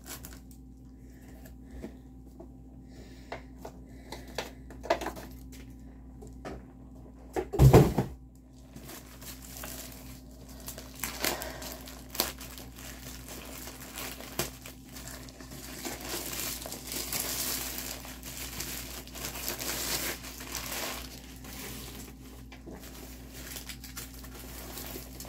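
A rolled diamond painting canvas and its plastic wrapping crinkling and rustling as they are handled and unwrapped. There are scattered light clicks, and one loud thump about eight seconds in.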